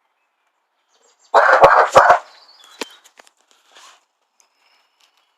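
Red-nose pit bull giving one loud burst of barking about a second in, with a few sharp knocks among it, then faint scuffling.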